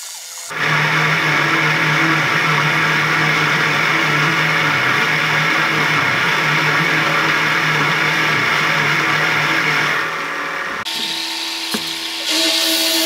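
Benchtop milling machine running an end mill through steel plate: a steady motor hum under a loud grinding cutting noise. The noise drops off about eleven seconds in and picks up again near the end.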